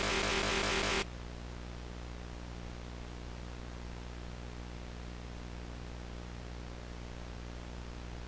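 Steady videotape hiss with a low mains hum. It follows a loud, buzzy noise that cuts off suddenly about a second in.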